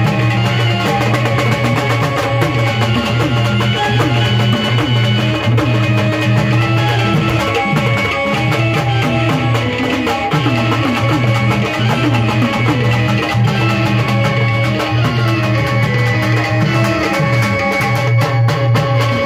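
Music with pitched instruments and drums, playing at a steady beat.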